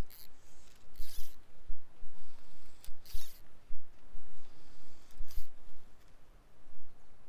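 Fly line swishing through the rod guides and the angler's fingers during casting and stripping: several short zipping swishes, with a few low handling thumps.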